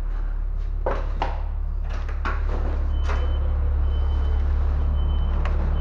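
A building's glass-and-iron front door being unlatched and pushed open, a handful of sharp clicks and knocks from the latch and door, over a steady low rumble.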